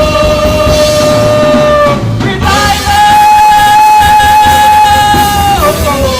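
Live worship music: a singer holds long, steady notes over a band. One note breaks off about two seconds in, a higher note is held for about three seconds, and near the end the voice slides down to a lower note.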